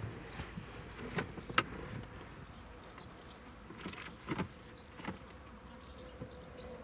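A few sharp clicks and knocks of hand work on parts, spaced irregularly, over a faint steady hum.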